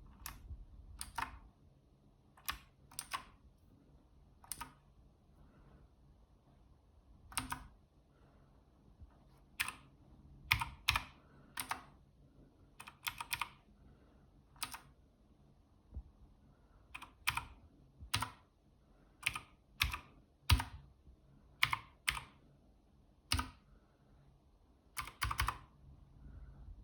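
Keychron K2 mechanical keyboard keys pressed one at a time, sharp single clicks and quick pairs spaced about a second apart, not continuous typing.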